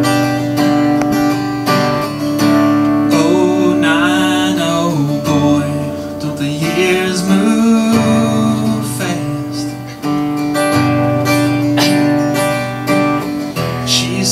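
Acoustic guitar strummed steadily, with a man singing two held, wavering phrases of the song over it in the middle.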